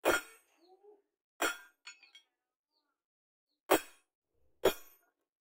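Four sharp metallic hammer taps on a steel chisel held against a forged meat cleaver blade, each with a brief high ring, spaced unevenly about one to two seconds apart.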